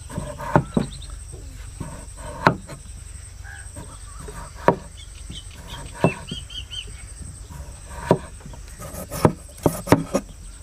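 A knife slices through raw potato and knocks on a wooden cutting board, one sharp stroke every second or two, coming faster near the end. A steady insect drone and short bird chirps sound behind it.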